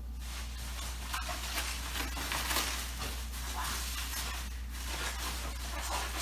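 Packaging rustling and crinkling as it is pulled and handled while a parcel is unwrapped, an uneven run of small scrapes and crackles, over a steady low hum.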